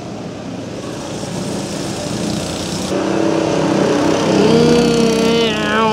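Petrol go-kart engine coming closer, growing steadily louder, its pitch rising near the end as the kart speeds up.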